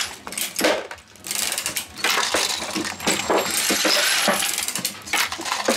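Dillon 1100 progressive reloading press cycling 9mm rounds: a dense run of metallic clicks and clinking brass, briefly quieter about a second in. The press is running normally again after its bent depriming die was straightened.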